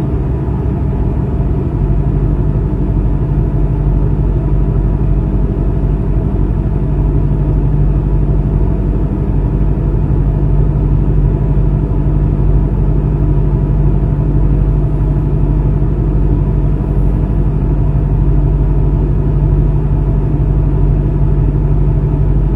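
V8 engine idling steadily with a deep, even rumble, heard from inside the car's cabin.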